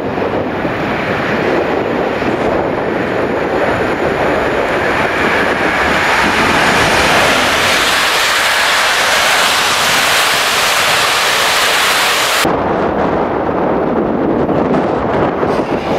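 Intercity passenger train hauled by an EP07 electric locomotive passing close, a loud steady rush of wheels on rail that builds as the coaches go by. It cuts off suddenly about three-quarters of the way through, leaving wind noise on the microphone.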